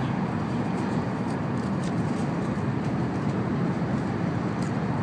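Steady in-cabin running noise of an N700-series Shinkansen car: an even low rumble from the train in motion, with a few faint light ticks.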